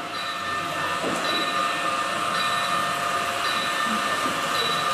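HO-scale model train running on the layout's track: a steady running noise with held tones and a short high tone repeating about once a second.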